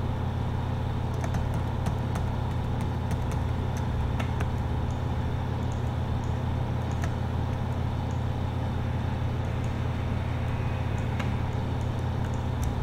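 A steady low hum, with scattered light clicks from a computer mouse.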